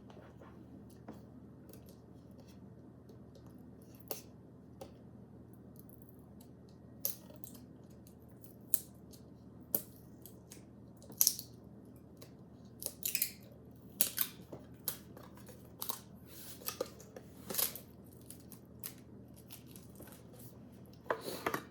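Plastic wrapping on a cookie tin being torn open and handled: short, scattered crinkles and snips. They are sparse at first and come more often in the second half.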